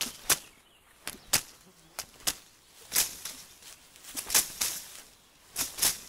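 Quick one-two boxing punches thrown in pairs: short, sharp snapping strokes, two close together, about once a second.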